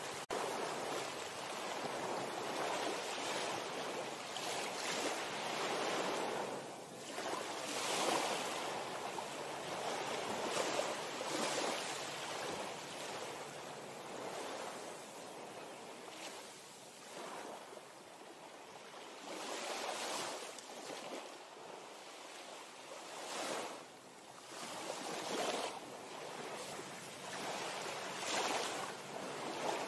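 Sea waves washing, with wind: a rush of water noise that swells and eases every couple of seconds.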